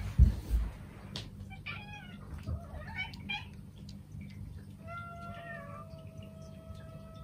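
Domestic cats meowing. A few short meows come first, then a long, drawn-out steady meow from about five seconds in. Two dull thumps at the start come from a person lying down on the floor.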